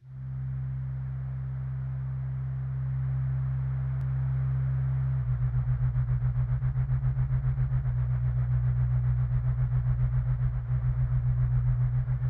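Electronic drone music: sustained deep bass tones under a layer of hiss, and about five seconds in the bass starts to pulse rapidly.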